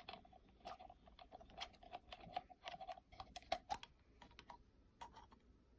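Slime mixture of glue and activator being stirred and worked in a container, making quick irregular sticky clicks. The clicks thin out about four seconds in and stop near the end.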